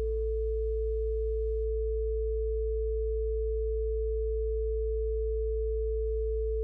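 Steady pure sine tones for sound therapy: a low 55 Hz hum under a single higher, steady tone. Faint background music fades out about a second and a half in, leaving only the tones.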